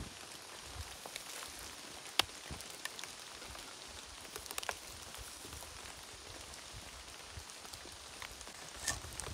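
Light rain pattering steadily, with scattered sharp taps; the loudest tap comes about two seconds in.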